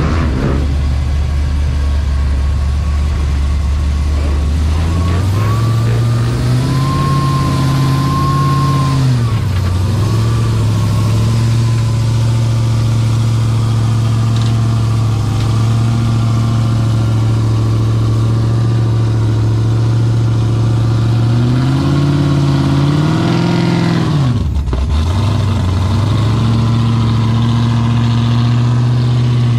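Custom Chevrolet convertible's engine running, brought up from idle to a steady higher speed and held there for long stretches. It eases off briefly, then rises and drops sharply about 24 seconds in before holding steady again.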